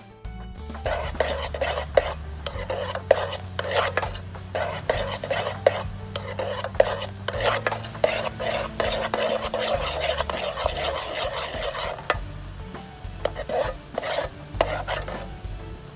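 A spoon stirring and scraping a boiling, bubbling syrup in a stainless steel pot as it cooks down into tang mae candy. The irregular scraping strokes ease off about twelve seconds in and pick up again a couple of seconds later.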